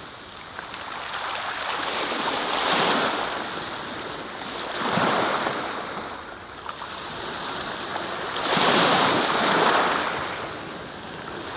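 Surf: waves washing in and receding, a rushing noise that swells and fades about every three seconds.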